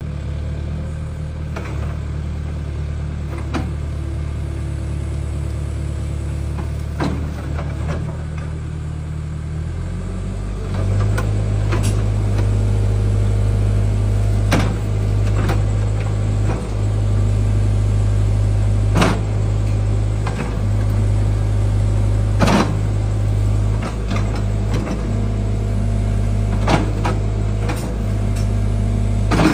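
Excavator's diesel engine running steadily, stepping up to a louder, higher running speed about ten seconds in. Scattered sharp knocks and clanks sound over it.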